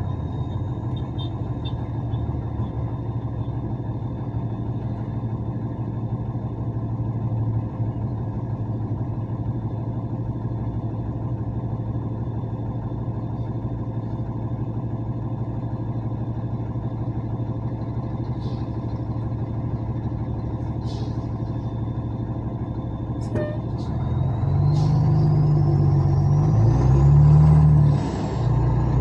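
Truck engine running steadily at a low drone; about 24 seconds in it gets louder, its pitch stepping up and down, with a thin high whine that rises in pitch.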